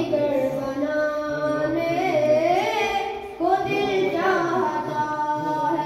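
A single young voice singing a naat, an Urdu devotional poem in praise of the Prophet, unaccompanied, with long held notes and melodic turns. There is a brief pause for breath a little past the middle.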